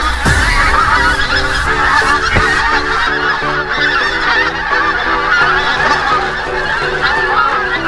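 A flock of geese honking, many overlapping calls at once in a dense, continuous chorus.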